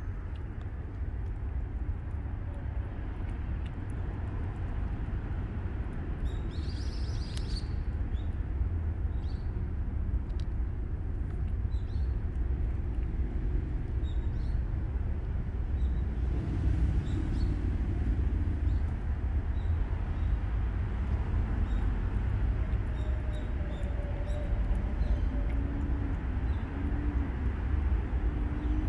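Outdoor background: a steady low rumble like distant traffic, with faint high chirps and ticks now and then, the clearest about six to eight seconds in.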